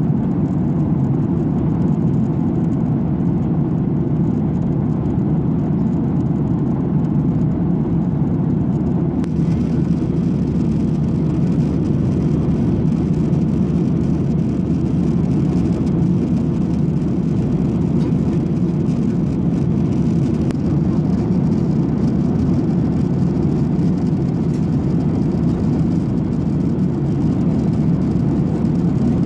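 Steady cruise noise inside the cabin of a Boeing 737-800: an even, low rush of airflow and the drone of its CFM56 jet engines.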